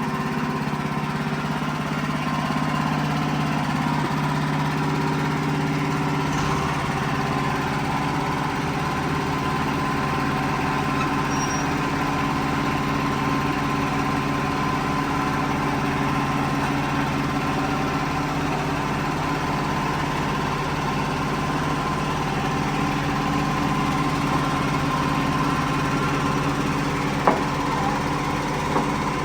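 WoodMizer LX55 band sawmill running steadily under load as its blade cuts through a large white oak log. One short sharp tick near the end.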